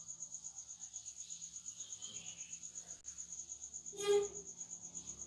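A steady, fast-pulsing high insect trill, about ten pulses a second, with one short beep about four seconds in.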